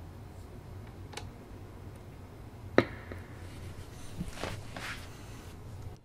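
Clicks and handling noise of a quarter-inch patch cable being plugged into a Mooer GE200 multi-effects pedal, with one sharp click about three seconds in and a few softer ones near the end, over a low steady hum.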